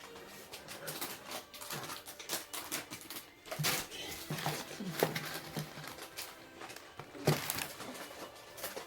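Irregular clicks and knocks of dishes and food packaging being handled at a table, with a few short bits of voices around the middle.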